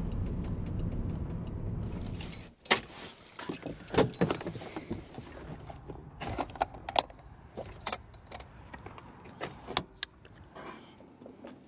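Low rumble of a VW Beetle TDI's diesel engine heard from inside the cabin, which stops after about two and a half seconds. Then a string of sharp metallic clicks and clinks as a hand works the metal latches on the Beetle's pop-up camper shell.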